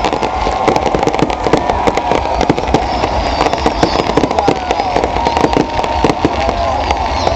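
Dense fireworks barrage: continuous rapid crackling and bangs, with a wavering whistle held near one pitch underneath.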